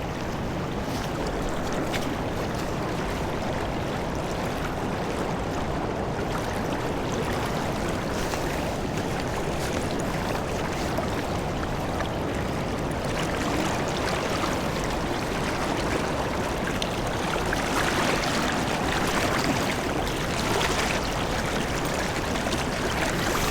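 River water running over the riffles of a creek in a steady rush, growing a little louder and more splashy near the end.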